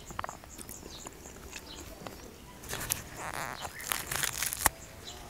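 Small birds chirping and whistling in the background, then from about halfway in a run of crackles and a few sharp clicks as bread is torn apart by hand.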